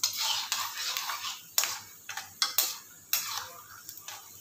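Metal slotted spoon stirring peanuts frying in oil, scraping and clinking against the pan in a series of quick, uneven strokes.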